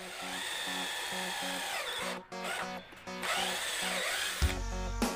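Cordless drill boring a pocket hole through a pocket-hole jig into a wooden board. The motor whines in two runs with a short break between, its pitch sagging and recovering as the bit bites into the wood. A low rumble comes near the end.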